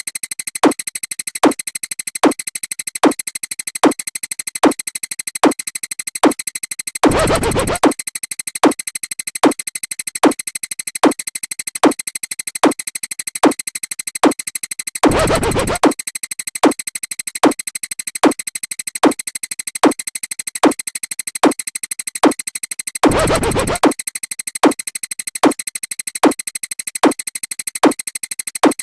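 Electronic sound effects: a hardstyle kick drum hitting about every three-quarters of a second, with a longer DJ baby-scratch about every eight seconds, over a steady high synthesizer tone.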